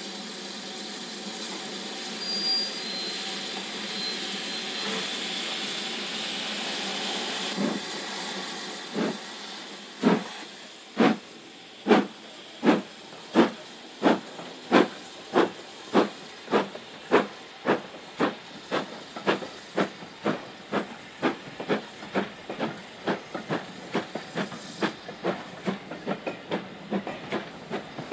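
Steam locomotive Normandy, a small LSWR B4 0-4-0 tank engine: steam hisses steadily for about seven seconds and then stops. Exhaust chuffs begin, slow at first and quickening steadily as the engine gets under way.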